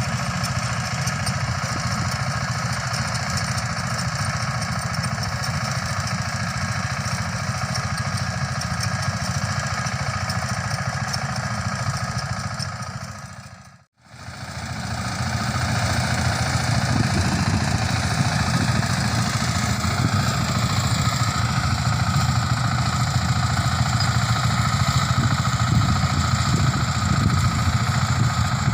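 Mini rice combine harvester running steadily under load, its engine and threshing mechanism making a continuous low drone. The sound fades to silence for a moment about halfway through, then comes back slightly louder.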